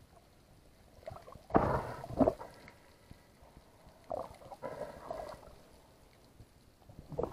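Muffled underwater water noise and gurgling from a camera housing moving through the water, with two loud rumbling bumps about a second and a half in, and softer ones around four to five seconds in and near the end.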